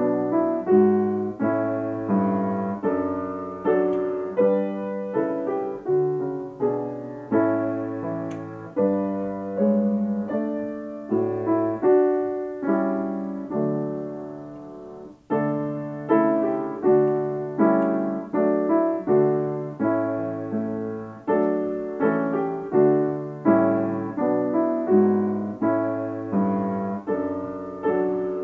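Solo piano playing slow, steady chords, with a short break about halfway through before it resumes.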